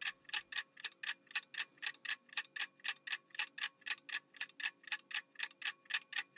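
Clock-like ticking sound effect, even and steady at about four ticks a second: a quiz countdown timer marking the time to answer.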